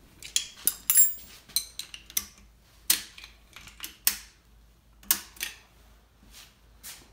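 Steel wrenches clicking and clinking on the valve tappet adjusting screws of a Mopar flathead engine block as the screws are backed off: a run of sharp, irregular metal clicks.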